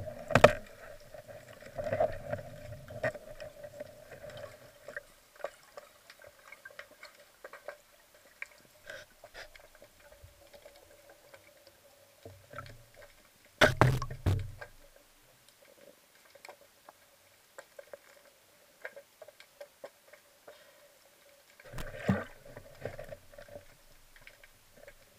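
Muffled underwater sound through a waterproof camera housing: scattered faint knocks and water movement over a faint steady hum, with a loud rush of noise about 14 seconds in and another about 22 seconds in.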